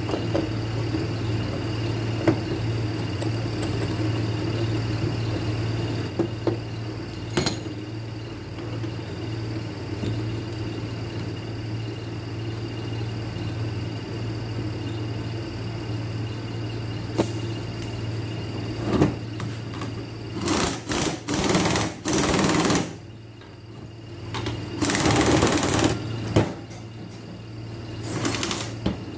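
Steady low hum with scattered clicks of metal tools, then a power tool running in three short bursts near the end, driving a puller to draw the bearing seal off a wheel hub.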